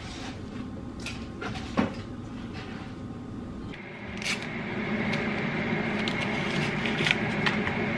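Paper tea-sachet wrapper handled and torn open, short rustles and sharp clicks. About halfway a steady appliance hum with a thin high whine comes in and runs under the handling.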